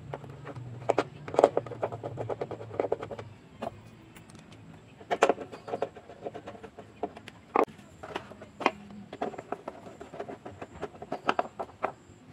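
Hand screwdriver driving wood screws into wooden clamping blocks that hold a circular saw's base plate down on a plywood panel: quick runs of clicking and scraping as the screws turn, with a few sharp knocks from the tool and blocks being handled.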